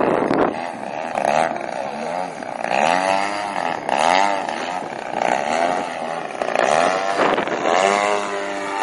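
Chip Hyde Vision 3D radio-controlled aerobatic plane's motor and propeller, its pitch swinging up and down again and again as the throttle changes and the plane passes overhead. Wind buffets the microphone at the start.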